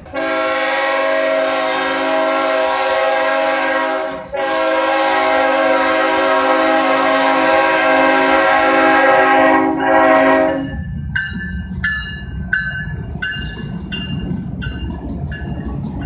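A diesel freight locomotive's air horn sounds a loud multi-note chord in two long blasts and a short one as the train approaches. The lead locomotives then pass close by with a low rumble and a ringing clang repeated about twice a second.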